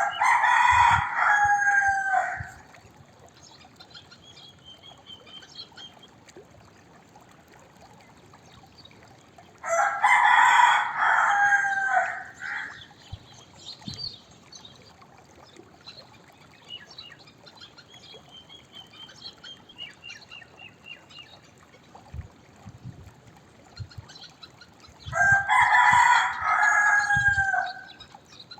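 Rooster crowing three times, about every twelve to fifteen seconds, each crow a loud cock-a-doodle-doo of about two and a half seconds ending in a drawn-out falling note. Faint chirps from other birds between the crows.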